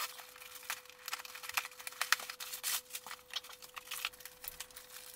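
A small cardboard box being opened: a utility knife slitting the packing tape, the flaps pulled open, and crumpled brown packing paper and papers crinkling and rustling in irregular crackles as they are pulled out.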